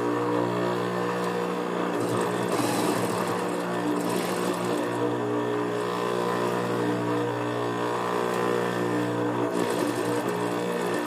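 Juki industrial sewing machine: its electric motor hums steadily, and the needle stitches in rapid runs, about two seconds in and again near the end.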